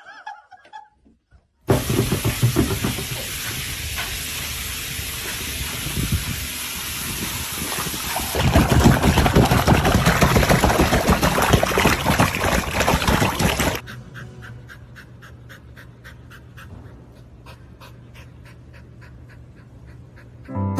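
Water splashing and rushing loudly as a dog swims in a pool, starting abruptly and cutting off suddenly. It is followed by a quieter stretch of a dog panting quickly and evenly.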